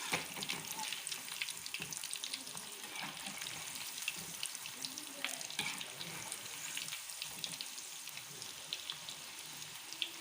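Battered bread balls deep-frying in hot oil: a steady sizzle with dense crackling and a few sharper pops.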